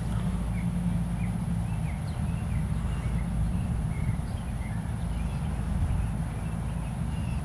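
Outdoor ambience: a low steady rumble with faint, short bird chirps scattered throughout, over a thin, steady high-pitched hiss.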